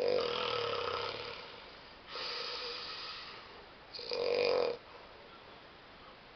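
A person snoring in sleep: three snores within about five seconds, the first about a second and a half long, the last one shorter.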